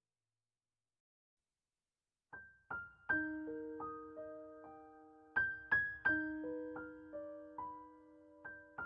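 Silence for about two seconds, then soft background piano music begins: single struck notes that ring out and fade, overlapping in a slow, gentle melody.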